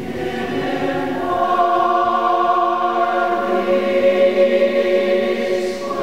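Mixed choir singing an unaccompanied close-harmony arrangement: sustained chords that swell in and build over the first couple of seconds, moving to a new chord about a second in and again past the three-second mark.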